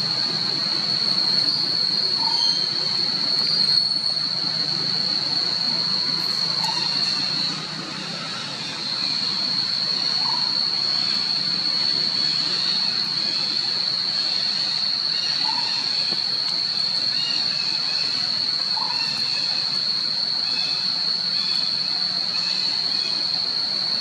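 Steady high-pitched drone of cicadas, which drops briefly about eight seconds in, with faint short chirps every few seconds.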